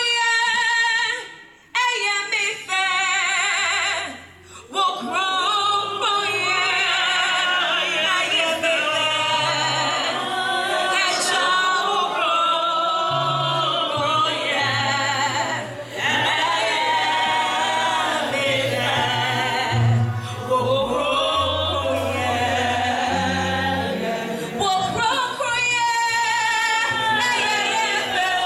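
Voices singing a song over instrumental accompaniment with a line of held bass notes. The music breaks off briefly twice in the first few seconds, then runs on continuously.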